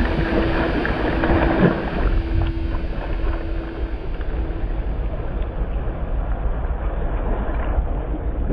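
Wind buffeting the microphone over open water, a steady low rumble.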